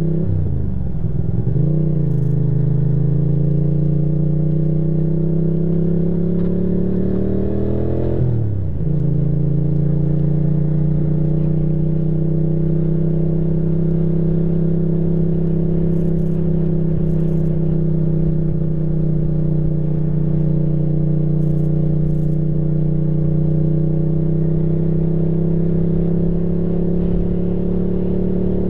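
Ducati motorcycle engine under way: the revs climb, drop sharply at a gear change about eight seconds in, then settle into a steady cruise that slowly rises.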